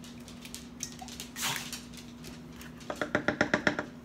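A kitchen utensil clinking quickly against a dish, about ten light, ringing clicks in under a second near the end. There is a short scrape about a second and a half in, over a steady low hum.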